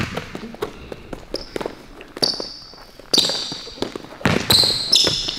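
A basketball bouncing on a court during one-on-one play, with irregular knocks, and sneakers squeaking high and short several times as the players cut and stop.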